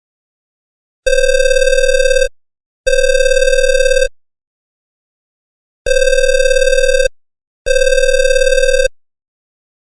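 Electronic phone ringing tone: a steady buzzy ring sounding in pairs, two rings of about a second each with a short gap between them, the pair heard twice with silence in between.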